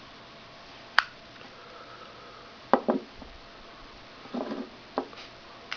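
A flower-shaped novelty lighter being bent and clicked to light, with one sharp click about a second in, then several softer clicks and knocks as it is handled.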